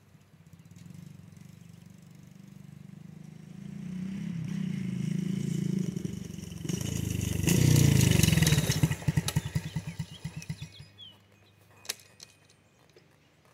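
Small dirt bike engine coming closer, growing louder from about three and a half seconds in and loudest about eight seconds in as it reaches the microphone. The engine then slows into separate, spaced putts that die away about eleven seconds in, followed by a single click.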